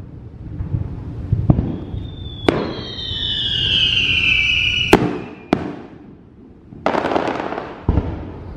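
Fireworks display: several sharp bangs of aerial shells, a falling whistle that lasts about two and a half seconds, and near the end a burst of crackling.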